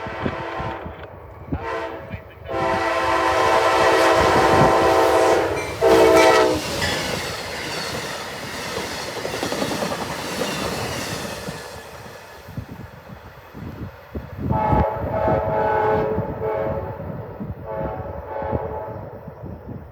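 Amtrak locomotive horn sounding a chord in a series of blasts: a brief toot, a long blast of about three seconds and a short one, then two weaker blasts near the end. In between, the passing passenger train rushes by with wheel clatter.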